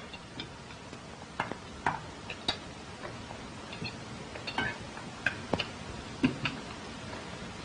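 Scattered light clinks and taps of cutlery on china plates as people eat at a table, irregularly spaced, over the steady hiss of an old film soundtrack.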